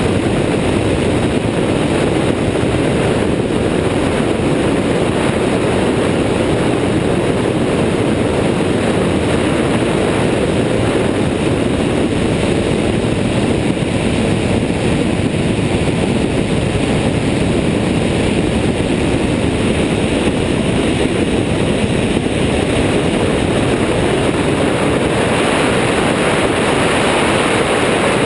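Airborne XT Tundra ultralight trike's engine and pusher propeller running steadily through takeoff and climb, mixed with heavy wind rush on the wing-mounted microphone.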